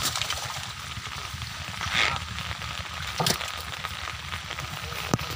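Water pattering and dripping with a steady crackling hiss, with a short splash about two seconds in and sharp slaps near three and five seconds.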